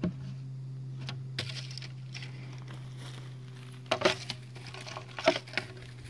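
Snap-on lid of a plastic bucket being pried off: a series of sharp plastic snaps and crackles, the loudest about four seconds and five seconds in, over a steady low hum.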